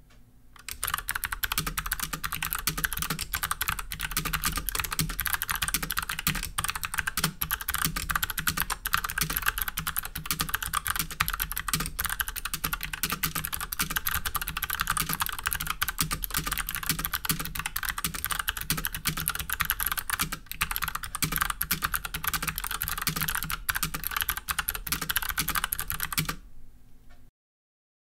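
Steady, fast typing on a GMMK mechanical keyboard fitted with Kailh BOX Pink clicky switches, whose click bars give each keystroke a crisp click in a dense stream. The typing starts just under a second in and stops about a second and a half before the end.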